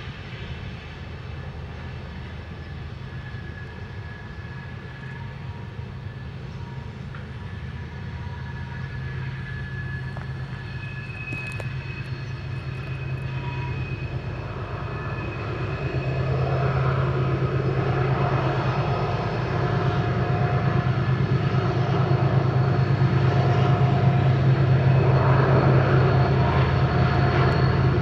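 Union Pacific diesel-electric freight locomotives approaching while pulling hard under load. Their engines make a low, steady drone that grows louder throughout and swells about halfway through.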